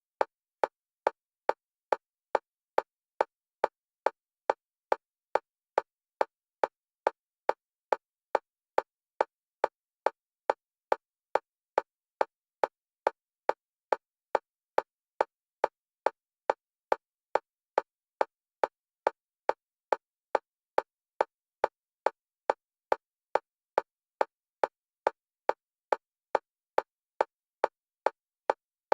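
Metronome-style clicks on a single pitch, evenly spaced at about two a second and all equally loud, alternating between the left and right stereo channels for EMDR bilateral stimulation.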